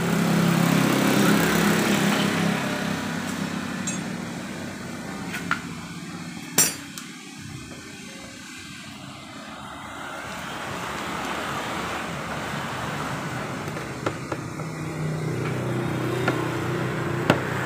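Metal hand tools clinking against a Honda Vario's front disc-brake caliper as it is worked on: a few sharp separate clinks, the loudest about six and a half seconds in, over a steady background hum.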